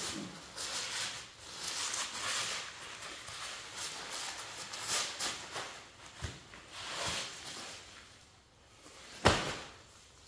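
Irregular rustling and scuffing handling noises, with a single sharp knock about nine seconds in.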